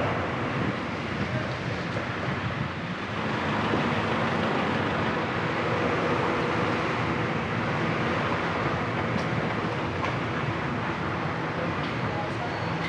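City traffic heard from a car driving through the streets: a steady mix of engines and tyre noise on the road with a low hum.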